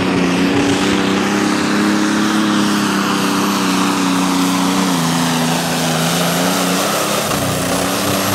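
Turbocharged Pro Stock pulling tractor's diesel engine running flat out under load, a loud steady high-revving drone whose pitch sags and recovers a few times, with a faint high whistle over it.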